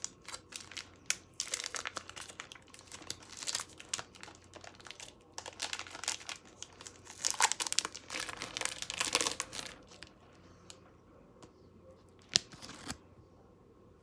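Foil granola bar wrapper being crinkled and torn open in irregular bursts, loudest about seven to nine seconds in, then a single sharp tick near the end.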